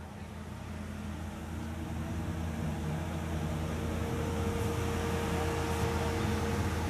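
Steady low engine hum that grows gradually louder, over faint crowd chatter.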